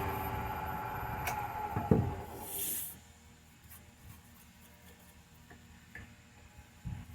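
Wood lathe motor running with a steady hum and a knock about two seconds in, then shut off about three seconds in. After that only a few faint clicks and knocks.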